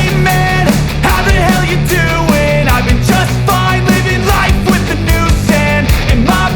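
Loud rock backing music with a steady, driving drum beat and a pitched melody line.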